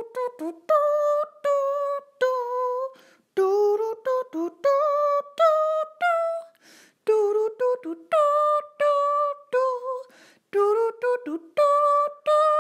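A woman's voice singing a short tune a cappella, in separate held notes with brief gaps between them and no clear words.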